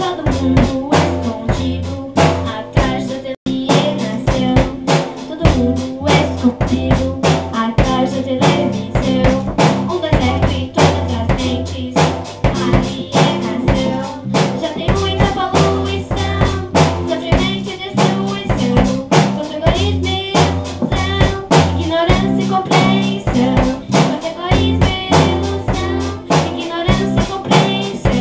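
A school band playing a song: a drum kit with bass drum, snare and rimshots keeps a steady beat under stepping bass notes and melodic instruments.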